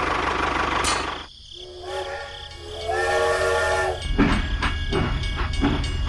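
Train whistle: a steady chord of several notes that sounds about two seconds in and steps up in pitch about a second later. It follows a running engine that cuts off abruptly about a second in, and it gives way to a low rumble with clattering knocks near the end.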